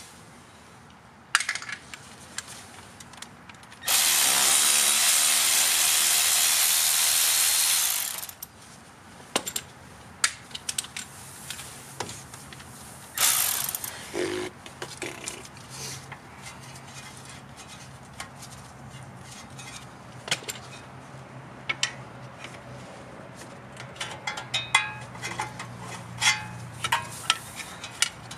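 Hand ratchet clicking and metal tools clinking on a truck's front steering knuckle as the wheel speed sensor is worked loose. About four seconds in, a loud steady hiss runs for about four seconds and then fades.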